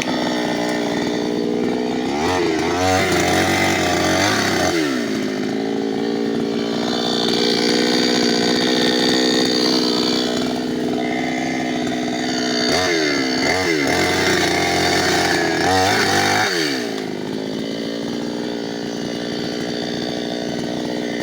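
New West 598X two-stroke petrol chainsaw running steadily. It is revved up and let back down twice, a couple of seconds in and again about two-thirds of the way through.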